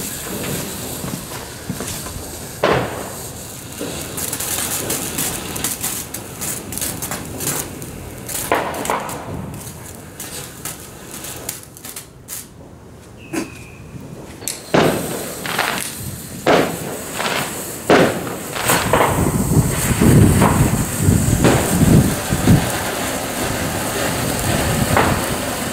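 Category 1 ground fountain fireworks spraying sparks with a rushing hiss and many sharp crackles and pops. It dies down briefly a little past halfway, then a fresh fountain starts, louder and crackling more densely.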